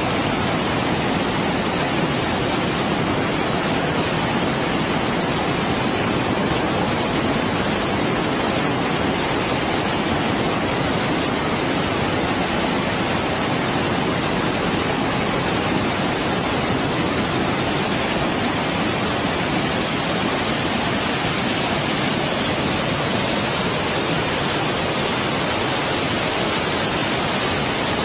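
Muddy floodwater rushing and churning down a swollen river in flash flood, a steady loud noise of fast water without let-up.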